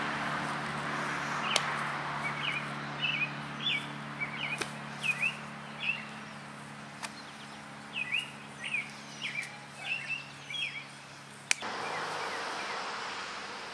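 A small bird chirping in a series of quick short notes, over a steady outdoor hiss and a low hum, with a sharp click near the end.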